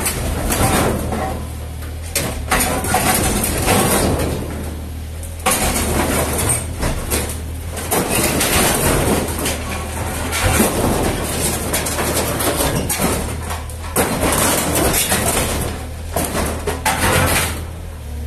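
Yanmar SV18 mini excavator's three-cylinder diesel engine running steadily, with repeated loud noisy bursts of work sound coming and going every second or two over it.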